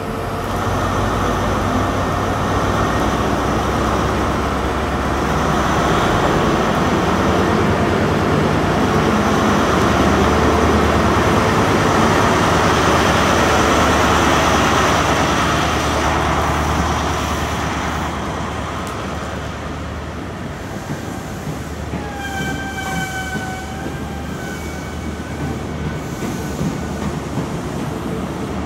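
A GWR 'Castle' High Speed Train set pulls out, led by Class 43 diesel power car 43092: the engine is running under power over a steady hum of train and rail noise. The noise builds to its loudest about halfway through, then eases as the train draws away. About 22 seconds in, a high steady pitched tone sounds for some three seconds.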